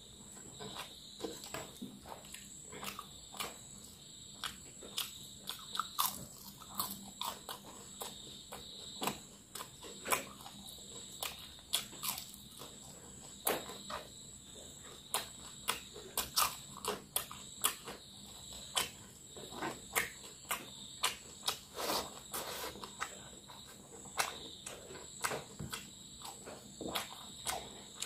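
Close-up eating sounds of fried fish and rice eaten by hand: wet chewing, lip smacks and crunching, many short sharp sounds in quick irregular succession. A steady high-pitched tone runs underneath throughout.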